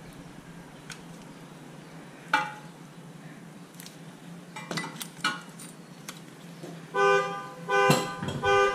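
A few light metal clinks as the brake caliper piston compressor tool is handled and taken off the caliper. About seven seconds in, a loud horn starts sounding in short repeated toots, about one or two a second.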